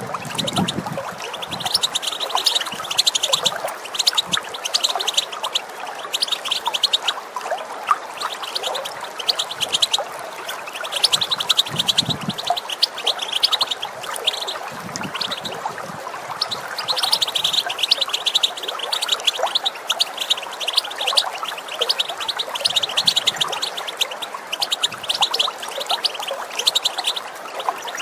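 European goldfinch giving its rapid, chattering 'bitbita' call notes in bouts with brief pauses, over the steady sound of running water.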